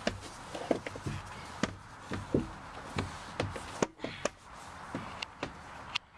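Irregular knocks and thumps of shoes and hands against the inside of a plastic tube slide as someone climbs up through it.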